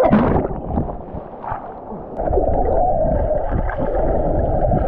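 A splash of someone jumping into a creek rock pool, then a steady, muffled rush of churning water with a low rumble from about two seconds in.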